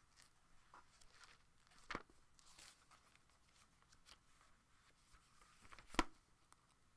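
Thin pages of a thick Bible being leafed through by hand: soft, faint rustling of paper, with a short sharp snap about two seconds in and a louder one about six seconds in.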